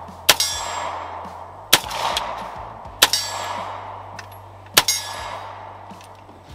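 Four 9mm shots from a Walther P38 pistol at uneven intervals, each trailing off in a short echo, fired from a truck's open driver's window.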